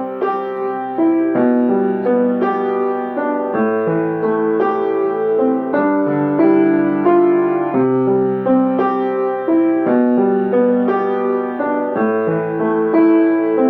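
Piano playing a passage in three-four time, single notes and chords struck one after another without a break.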